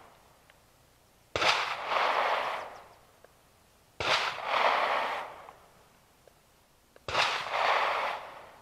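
Three gunshots from another shooter on the range, about three seconds apart, each a sharp crack followed by about a second of rolling echo.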